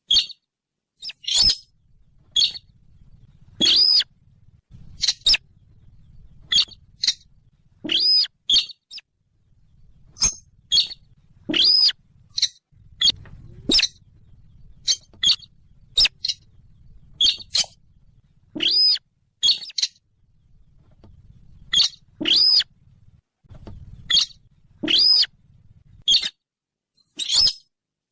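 Recorded calls of the bird known in Indonesia as the sintar, played as a hunting lure: short, sharp, high chirps repeated at irregular intervals, about twenty in all, with a faint low hum underneath between some calls.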